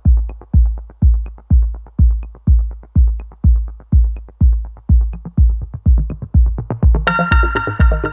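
Electronic background music: a steady drum-machine kick beat of a little over two beats a second, joined by a synth melody about seven seconds in.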